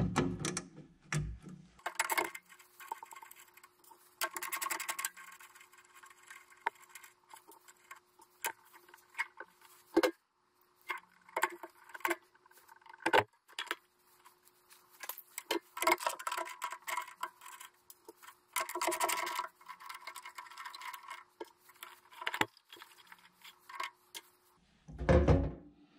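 Handling noise from working a tractor ammeter and its wiring loose from the dash: scattered sharp clicks and small metal rattles of wire terminals and studs, with bursts of rustling and scraping. A faint steady hum runs under most of it, and a heavy dull thump comes near the end.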